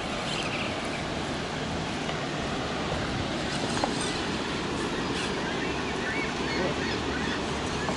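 Steady rushing noise of water pouring over a dam spillway, even and unbroken, with a few faint clicks over it.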